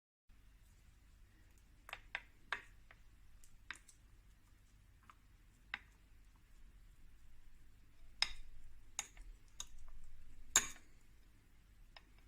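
Scattered short clicks and taps of kitchen utensils and containers being handled while food is prepared. There are about a dozen at uneven intervals, and the loudest comes near the end.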